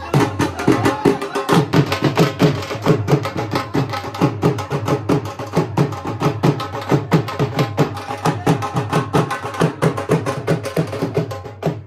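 Dhol drums played hard and fast, deep booming strokes mixed with sharp stick hits in a driving folk rhythm of several strokes a second.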